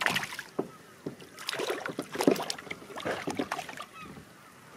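A hooked mackerel thrashing and splashing at the water's surface as it is reeled in on sabiki feathers, in irregular bursts. The splashing dies away near the end as the fish is lifted clear of the water.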